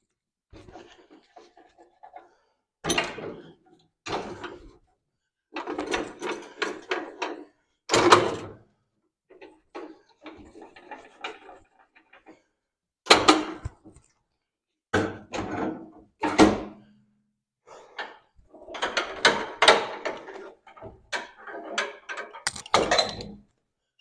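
Swing-arm tool stands (The Tool Swing bench-grinder and vise stands) being unlocked and swung back down one after another: a run of metal clunks, rattles and sharp knocks, a loud knock every few seconds.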